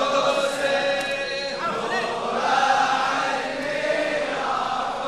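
A crowd of mourners chanting together, many voices blended into one sound: the congregation's response in a Shia latmiya.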